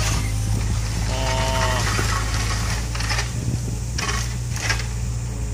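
Engine of a heavy machine running steadily at low revs, with a brief whine about a second in and three short hissing bursts in the second half.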